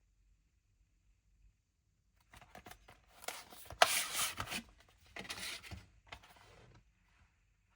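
DVD box set packaging being handled: a few seconds of rustling and scraping, with a sharp click about four seconds in.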